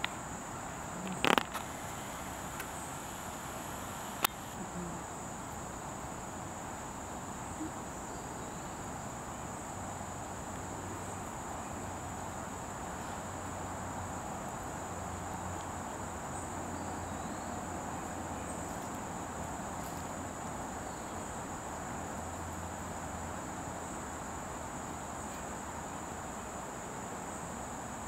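Insects singing in a steady, unbroken high-pitched drone, with two sharp knocks about one and four seconds in.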